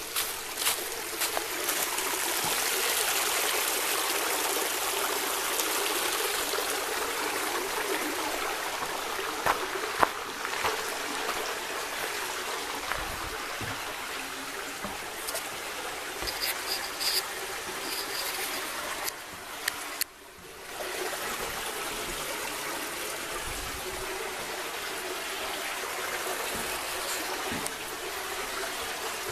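Small woodland creek trickling over rocks, a steady rush of running water, with scattered light knocks and crackles.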